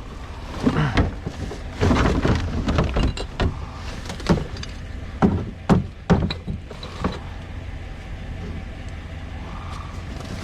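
Irregular knocks and clatter of junk being handled and pulled from a curbside pile, dying down after about seven seconds, over a low steady rumble like an idling vehicle.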